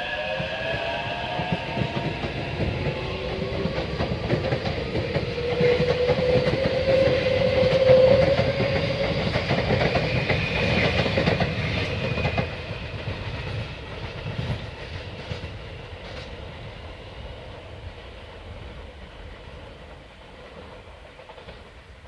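Taipei Metro C381 electric train accelerating out of a station. Its traction motors whine in tones that rise in pitch, over wheel and rail noise. The sound peaks as the cars pass, then fades steadily after about twelve seconds as the train runs off.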